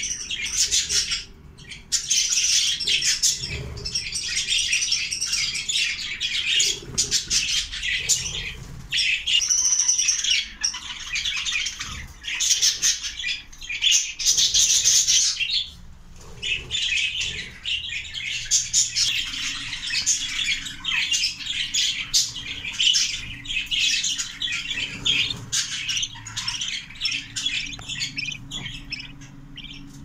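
Budgerigars chirping and chattering without a break, a dense mix of quick high chirps and squawks that drops off briefly twice.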